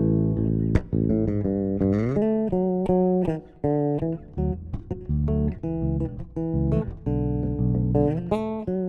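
Bass guitar playing a melody in northeastern Brazilian style: a run of plucked single notes with a slide up in pitch about two seconds in, and short clicks between the notes.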